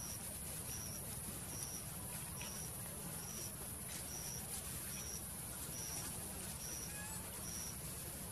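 Outdoor ambience: a steady high buzz, with a short high pip repeating evenly a little more than once a second, about ten times, over a low rumble.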